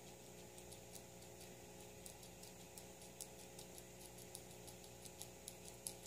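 Guinea pig chewing sprigs of fresh greens: faint, quick crunching clicks, irregular at about three or four a second.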